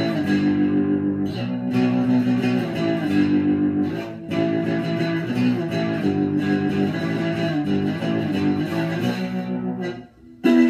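Electric guitar being played, notes and chords changing about every half second. The playing breaks off near the end, followed by one short, loud strummed chord.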